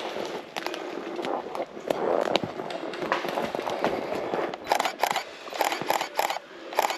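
Footsteps crunching and snapping through dry conifer needles and twigs on a forest floor, irregular at first, then a quicker run of sharp crackling steps in the last couple of seconds.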